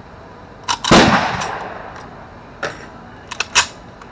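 Metallic clicks and clacks of an SKS rifle being loaded from a stripper clip, the rounds pressed into its magazine. About a second in there is one loud bang that rings out briefly, and several sharper clicks follow near the end.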